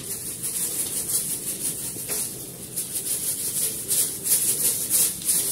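Chocolate sprinkles rattling in a small shaker jar, shaken over a cake in quick repeated strokes.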